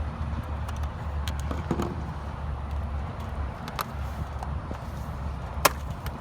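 Small clicks and taps of hand work on a truck bed cover's latch hardware, with one sharp click about five and a half seconds in, over a steady low rumble.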